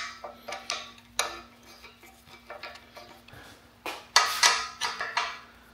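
Steel Allen key clinking and scraping against the socket-head bolts of a robot arm's base as they are tightened: a string of sharp metallic clicks, thickest about four seconds in, over a faint steady hum.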